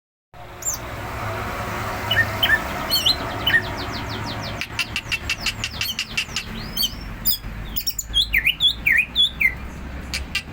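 Cucak ijo, a green leafbird, singing a varied run of chirps and whistles, with a fast rattling series of notes in the middle. A steady low hum runs underneath.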